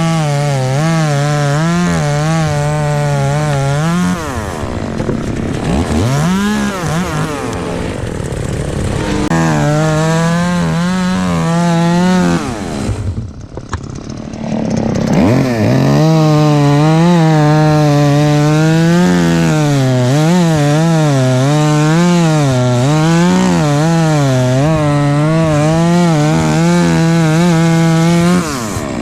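Two-stroke chainsaw cutting through ash wood at high revs, its pitch wavering under the load of the cut. It eases off about four seconds in and again near the middle, briefly going quieter, then revs back up and cuts on steadily until near the end.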